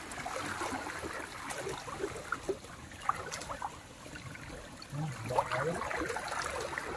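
Shallow river water flowing and trickling, with scattered small splashes and ticks. A voice is heard briefly about five seconds in.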